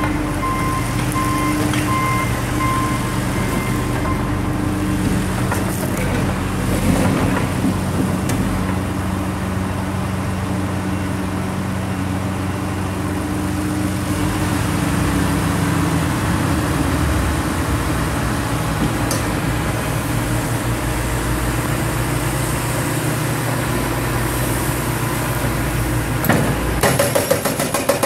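John Deere 710G backhoe loader's diesel engine running steadily, its pitch shifting a little partway through. Near the end a hydraulic breaker starts hammering in a rapid, even train of blows.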